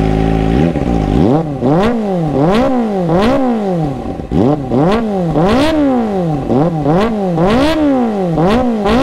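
Kawasaki ZX-25R's 249 cc inline-four idling briefly, then blipped over and over through an IXIL slip-on exhaust with its dB killer fitted: about ten quick revs to roughly 8,000 RPM, each rising and dropping back, in a steady rhythm.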